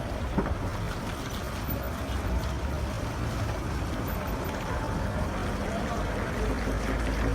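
Outdoor street ambience: a steady noisy rumble, heavy in the low end, with faint voices in the background.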